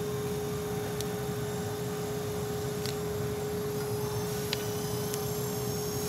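StripMeister E250 electric wire stripping machine running with a steady motor hum and one steady tone, as 18 gauge stranded copper wire is fed through it. A few faint clicks.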